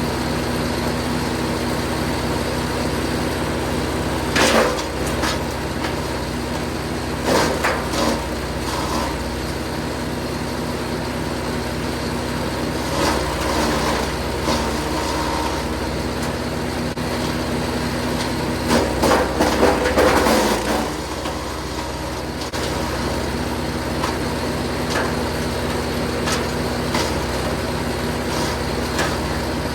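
Jansen 1500e GTS wood chipper's engine running steadily while branches are fed through, with crackling bursts of wood being chipped about 4 seconds in, around 7 to 8 seconds, about 13 seconds in, and the loudest run near 19 to 21 seconds.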